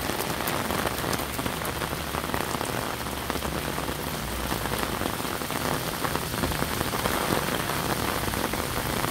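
Torrential rain pelting a waterlogged road and pavement: a dense, steady hiss of drops splashing into standing water.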